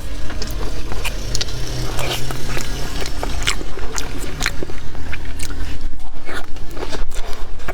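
Close-up crunching as crispy fried food is bitten and chewed, a run of sharp crackles, over background music.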